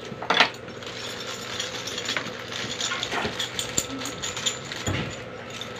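Small metal screws and bolts clinking and a plastic bag crinkling as hands pick through a bag of hardware, in a run of light irregular clicks, with a dull knock near the end.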